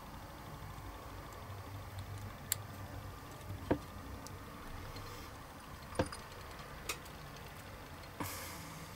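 Small sharp clicks and taps as a diecast model car's metal body and a thin steel wire are handled, four or so spread a few seconds apart, then a brief rustle near the end, over a faint low hum.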